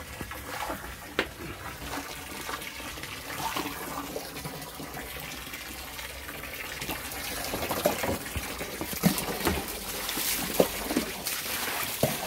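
Water from a garden hose running into a plastic basin and splashing over freshly boiled radish greens in a pot, with scattered knocks and splashes that grow busier in the second half.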